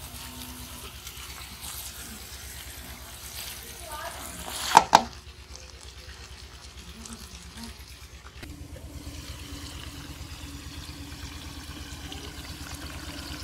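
Masala-coated chicken sizzling softly in an aluminium pot on a gas burner, with a wooden spatula scraping and dabbing against the pot. About five seconds in come two sharp, loud metal clanks, and about eight and a half seconds in a steady low hum starts up and keeps on.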